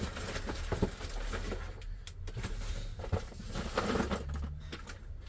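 Handling noise: irregular light clicks and knocks as small plastic key cases are picked up and moved about.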